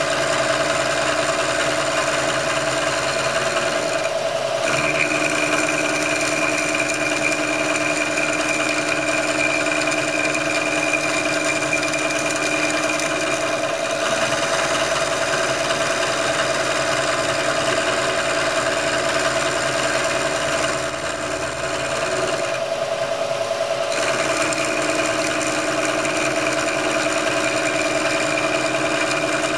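Vertical milling machine running steadily, its end mill cutting an aluminium piston to lighten it. A higher whine joins the steady motor hum about five seconds in, drops out about halfway through, and returns with about five seconds to go.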